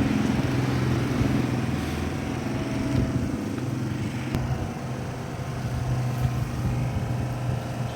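Hyundai i10 engine running steadily at idle, with a rough clattering over it from the car's knocking steering rack, which the mechanic puts down to a loose, worn rack.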